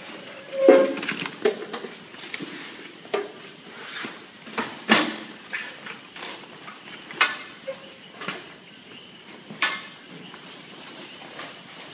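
Irregular knocks and clatter of things being handled and moved about, about ten separate sharp sounds with the loudest about a second in.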